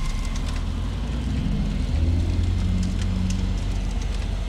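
A car engine running with a low rumble that grows louder about two seconds in, as a car drives up, with faint crackling over it.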